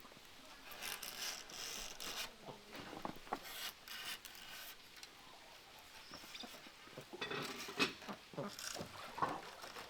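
Irregular rubbing and scraping with a few light knocks as things are handled by hand.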